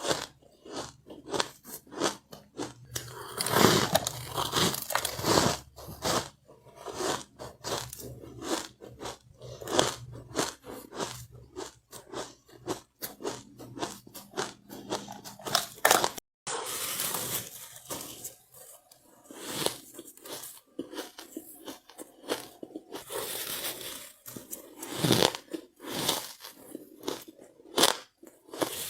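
Soft powdery ice being bitten and chewed close to the microphone: a dense run of irregular crunches, with a brief dropout about sixteen seconds in.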